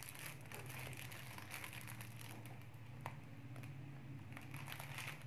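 Faint rustling of clear plastic wrapping and light ticks as makeup brushes are handled, with one small click about three seconds in, over a low steady hum.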